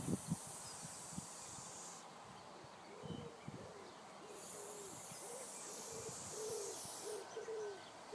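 Aerosol spray-paint can hissing in two bursts of a couple of seconds each as paint is sprayed, with a run of short, repeated low calls in the background from about halfway through.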